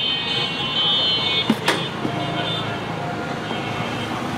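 Street traffic noise, with a steady high-pitched electronic tone for the first two seconds and two sharp clacks about a second and a half in.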